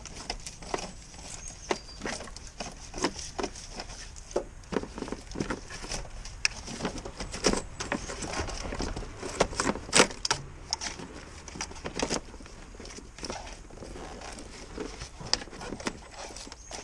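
Old aerial wiring loom being pulled through the bulkhead into the engine bay by gloved hands. Cables, connectors and plastic trim rustle, click and tap irregularly, with the sharpest click about ten seconds in.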